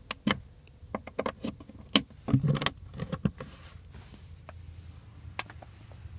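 Hands handling the plastic rear centre console and its 12-volt outlet caps: a quick run of clicks and knocks over the first three and a half seconds, the heaviest knock about halfway through, then only a low steady hum.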